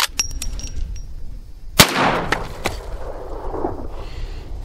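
A single shot from a Marlin Model 1894 lever-action rifle in .44 Magnum, about two seconds in, with an echo that dies away over a second or two. A few small sharp clicks come before and after the shot.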